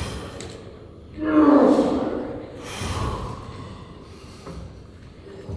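A man breathing hard while straining through a set of cable flyes: sharp, forceful exhales, the loudest a voiced grunt about a second in.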